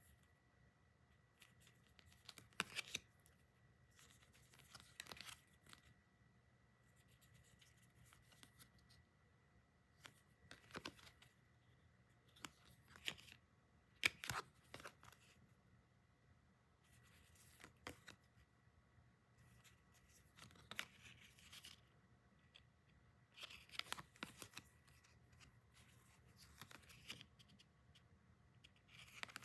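Faint, scattered handling noises from unboxing merchandise: short bursts of packaging rustling and tearing, with small clicks, about a dozen times with quiet gaps between.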